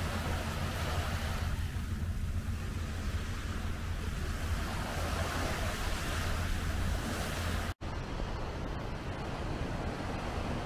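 Small waves lapping and breaking on a sand-and-pebble beach, with a steady low wind rumble on the microphone. The sound cuts out for an instant about eight seconds in, and after that the surf hiss is fainter.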